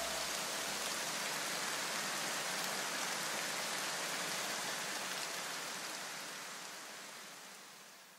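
A steady, even hiss like rushing air or rain, fading out over the last few seconds; a low rumble under it dies away in the first second or two.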